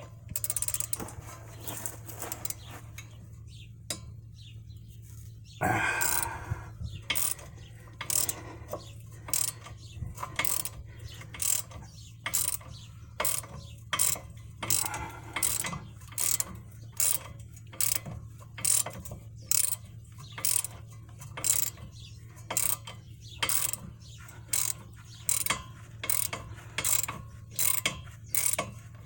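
Hand ratchet wrench clicking in a steady rhythm, about three strokes every two seconds, working a lower shock-absorber mounting bolt loose. A steady low hum runs underneath.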